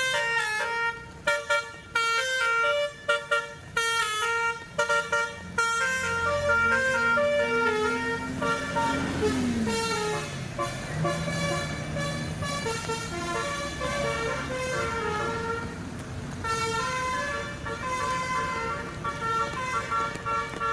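A bus's telolet basuri musical horn playing a melody: a quick run of short, stepping notes, then slower, longer notes. A low tone rises slowly and drops back about halfway through.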